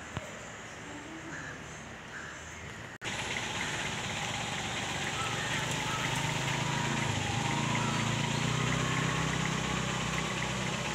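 Quiet indoor room tone, then from about three seconds in, louder outdoor ambience with birds calling and a low, steady engine hum.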